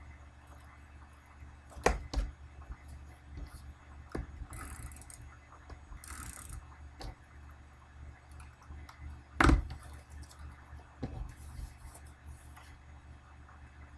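Craft materials handled on a worktable: a few sharp knocks of objects being set down, the loudest about two thirds of the way in, and several brief rustles of paper and cardstock.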